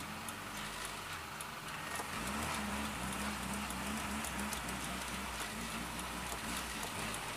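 Carbureted VW AP engine of a Volkswagen Voyage idling, heard from inside the cabin. The low hum gets a little louder and starts to waver about two seconds in. The idle is set low and the engine has been stalling, which the driver puts down to the carburettor's idle setting.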